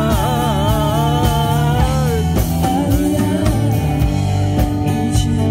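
Live band music with a singer's voice over the band; the singing stops a little over two seconds in while the band plays on.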